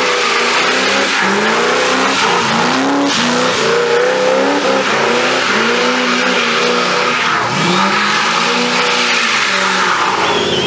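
First-generation Ford Mustang coupe doing burnout donuts: its engine revs up and down again and again under load while the rear tires spin and squeal on the asphalt.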